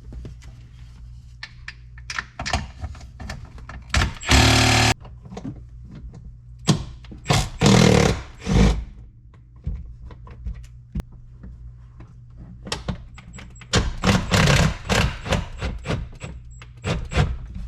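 Steering-column bolts being loosened under a truck dashboard: a short loud burst of a power tool about four seconds in, another burst a few seconds later, then knocks and clatter of tools and metal parts.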